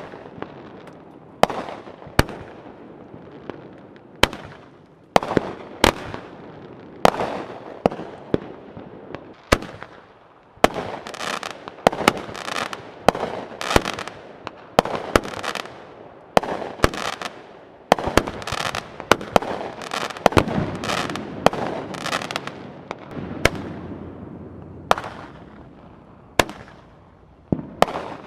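Aerial fireworks firing in a continuous series: a sharp bang every second or two as shells launch and burst. A dense rush of noise fills the gaps between bangs and is thickest in the middle stretch.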